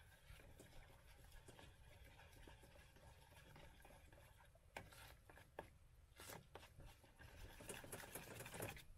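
Mashed potatoes being stirred in a steel pot: faint scraping and soft knocks of the utensil against the pot, more frequent and a little louder in the second half.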